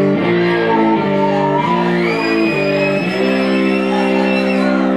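Ibanez hollow-body electric guitar played through an amplifier in a blues instrumental passage: a run of notes changing about twice a second, then a long held chord, with a high note sliding up about two seconds in.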